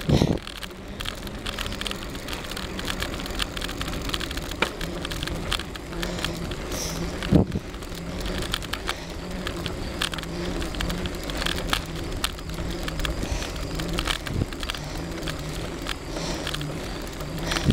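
Bicycle being ridden up a steep hill on a rough paved country road: steady tyre and drivetrain noise with frequent small clicks and rattles, and a few louder thumps, about seven and fourteen seconds in.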